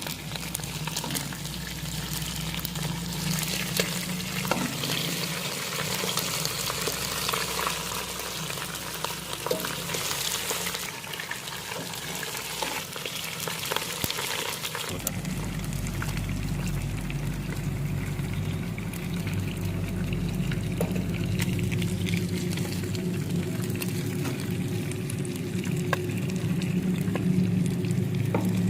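Food sizzling as it fries in hot oil, a steady hiss. About halfway through, the sound changes abruptly and a steady low hum comes in under the sizzle.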